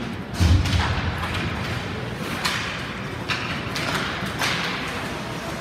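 Ice hockey play on a rink right after a faceoff: a heavy thump about half a second in, then several short scraping hisses from skates and sticks on the ice.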